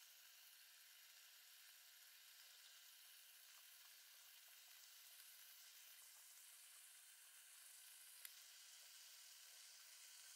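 Duck breast slices sizzling faintly in rendered duck fat in a wok: a steady, soft, fine crackling hiss. A single sharp tick a little past eight seconds in.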